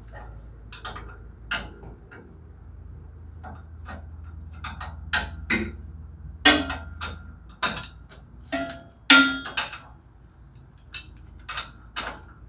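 Irregular metal clanks and knocks, some ringing briefly, as hand tools and brake caliper parts are handled and knocked against each other. A faint low hum underneath stops about halfway through.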